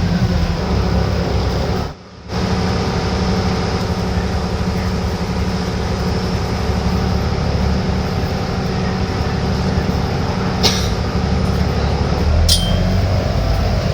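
Alexander Dennis Enviro500 MMC bus's Cummins diesel engine and drivetrain running with a steady drone of several whining tones, one of its unusual engine noises. The sound cuts out for a moment about two seconds in. Two short high squeaks come near the end, as the low drone grows louder.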